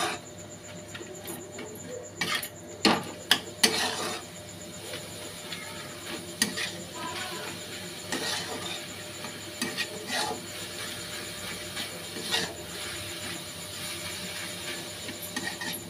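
A flat spatula scraping and knocking against a black kadai as chicken mince is stirred and mixed, over a low steady hiss. The strokes come in a quick cluster over the first few seconds, then more sparsely.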